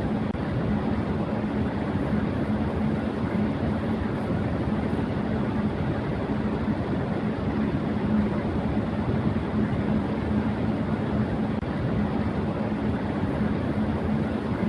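Electric fan running at high speed: a steady rush of moving air with a constant low hum from the motor and blades underneath.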